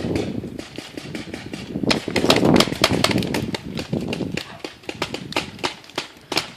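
Paintball markers firing: many sharp pops in quick, irregular succession, over rustling movement noise that is loudest about two seconds in.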